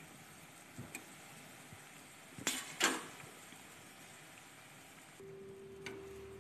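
Sel roti deep-frying in hot oil in an iron kadai: a faint steady sizzle, with two sharp clanks of the metal skewer against the pan about two and a half seconds in. About five seconds in the sizzle stops and a steady low hum takes over.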